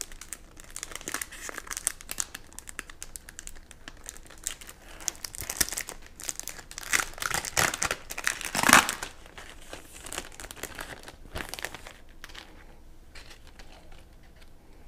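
Plastic packaging of a Pinlock anti-fog lens insert being opened and handled with gloved hands: irregular crinkling and rustling, loudest about eight or nine seconds in, then fainter rustles near the end.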